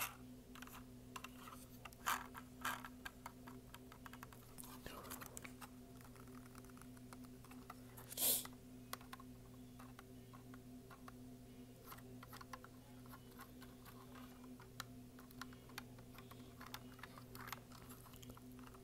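Fingers and nails tapping, clicking and handling a small plastic model car close to the microphone: many quick, light, irregular clicks. A short, louder burst of noise comes about eight seconds in, over a faint steady hum.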